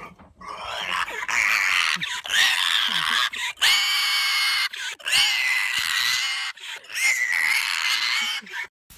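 Pig squealing as it is picked up and held aloft. It gives about five long, high-pitched squeals in a row with short breaks between them.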